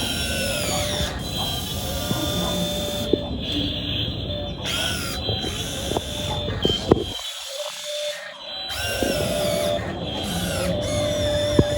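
Electric hydraulic pump and motors of a model RC excavator whining, the pitch falling and rising in short bursts as it works, with scattered clicks.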